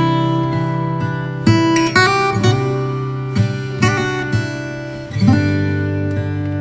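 Background music: strummed acoustic guitar, with new chords struck every half second to second.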